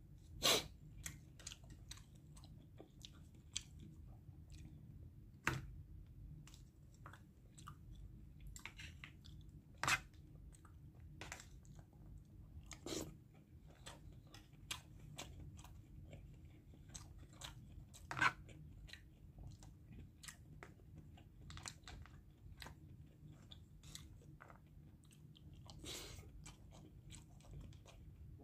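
A person eating: quiet chewing, with short sharp clicks and scrapes of a fork and spoon against a takeaway food container, a handful of them louder, over a faint low steady hum.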